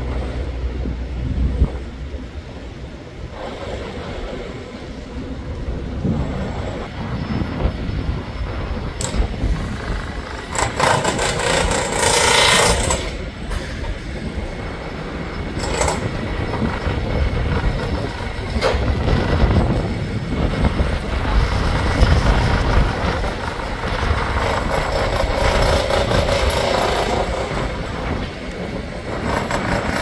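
City street traffic: a steady low rumble of passing vehicles, with a louder rushing noise lasting about two seconds roughly a third of the way in.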